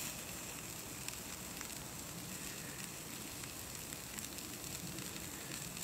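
Food frying with a faint, steady sizzle and scattered small pops.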